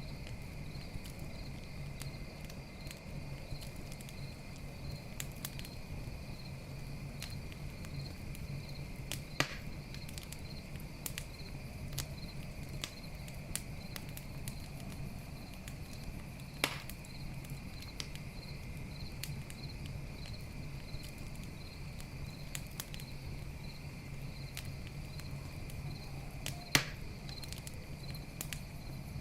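Campfire crackling with frequent small snaps and three louder pops, over a steady chorus of crickets trilling and a low steady rumble.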